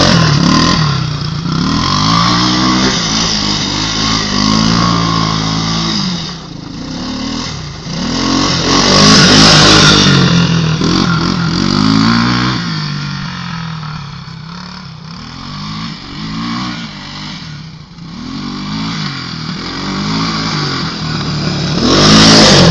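A motor vehicle engine revving up and down over and over, its pitch rising and falling every second or two. There is a loud rushing noise around nine to ten seconds in and again near the end.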